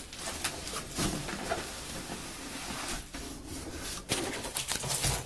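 Cardboard scraping and rustling, with a few light knocks, as a yellow retail box is slid out of a brown shipping carton.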